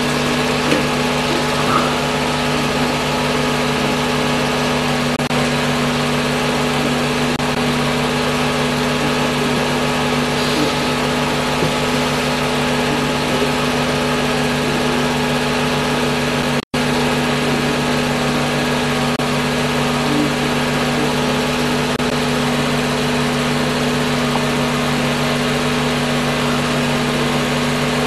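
Home-movie film projector running with a steady motor hum. The sound drops out for an instant about seventeen seconds in.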